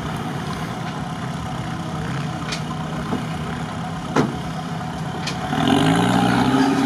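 Off-road 4x4's engine running steadily while stuck in swamp mud, with a few sharp clicks, the loudest about four seconds in; near the end the engine revs up and gets louder as the vehicle pulls forward.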